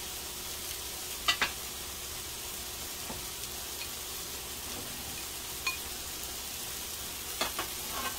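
Shrimp, vegetables and rice sizzling steadily in a frying pan as fried rice cooks, with a few short clicks scattered through.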